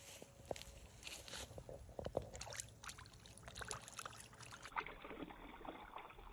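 Small splashes and drips of shallow pond water as a chain pickerel is lowered by hand into the water and released, a patter of little sharp splashes thickest in the middle.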